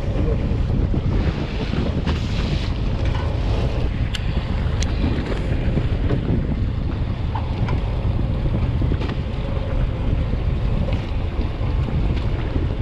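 Steady wind buffeting the microphone aboard a fishing boat at sea, mixed with the rush of water around the hull, with a couple of faint ticks near the middle.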